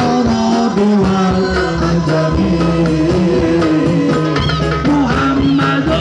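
Live sholawat, an Islamic devotional song: a man sings a melody into a microphone over amplified band accompaniment.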